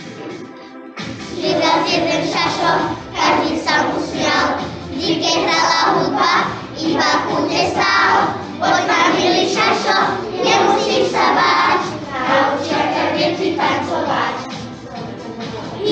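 A group of young children singing a song together with music, briefly breaking off about a second in before carrying on.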